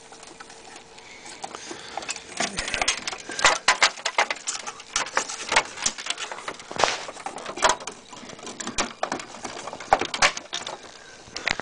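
Hands working inside a desktop computer to fit an RDRAM memory module: irregular clicks, taps and knocks of plastic and metal parts, in clusters.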